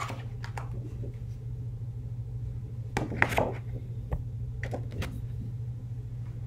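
Cardboard and plastic poster packaging being handled: scattered short rustles and knocks, a small cluster about three seconds in, over a steady low hum.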